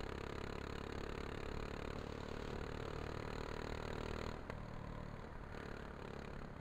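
Go-kart engine running at speed on the track, picked up by a camera mounted on the kart together with wind noise. About four and a half seconds in there is a short click and the sound drops a little.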